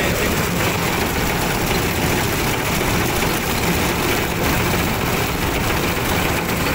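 Combine harvester running steadily as it cuts wheat, its engine and machinery heard from on board, mixed with strong wind blowing over the microphone.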